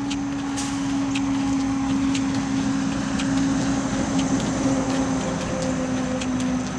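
A steady mechanical hum that slowly sinks a little in pitch and grows slightly louder, with faint regular ticking over it.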